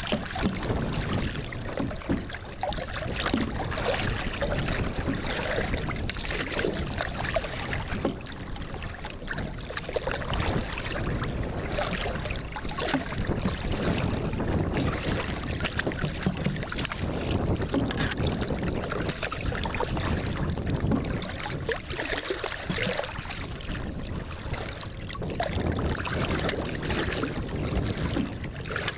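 Water splashing and lapping around a tandem kayak as it is paddled, with irregular short splashes over a steady rushing noise of wind on the microphone.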